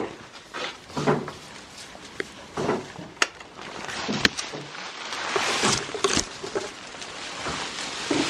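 Goats making a few short calls, with a couple of sharp knocks among them.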